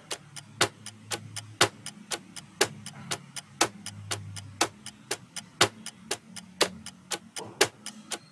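Ticking-clock countdown sound effect: sharp ticks about four a second, with a louder tick once each second, over a faint low hum.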